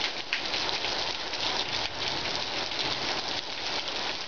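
Steady rain falling in a thunderstorm: an even hiss with the fine patter of drops.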